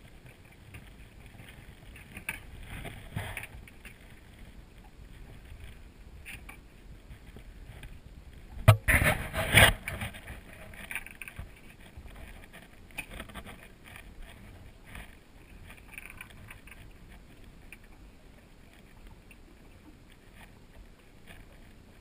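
Knocks and handling noises on a small boat's hull and deck as a line is worked over the bow, with a loud burst of clattering knocks about nine seconds in.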